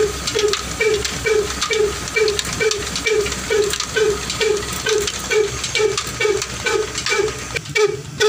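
Old black desi Ruston-type single-cylinder diesel engine running at a slow, even beat of about two and a half beats a second. It is under load, driving a rice huller through a long flat belt and pulley.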